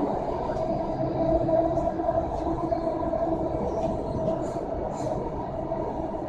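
Delhi Metro train running at speed, heard from inside the carriage: a steady rumble of wheels on rail with a steady whine over it.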